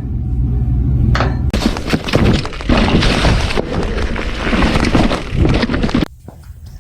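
Firewood being split: an axe strike about a second in, then several seconds of dense cracking and splintering wood that cuts off abruptly near the end.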